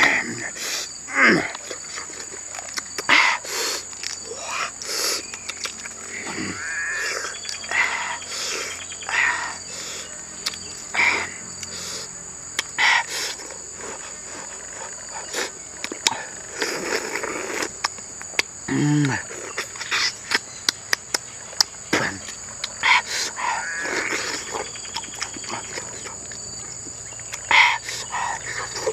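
A person eating roasted duck eggs with loud mouth sounds: chewing, lip-smacking and short 'mm' noises coming in bursts. A steady high insect buzz, crickets or similar, runs underneath.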